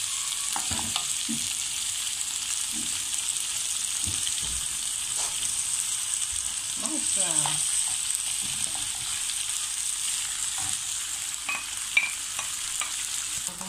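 Sliced vegetables sizzling in oil in a frying pan while sliced mushrooms are tipped in from a bowl. A steady hiss with scattered light knocks, and a sharp clink near the end.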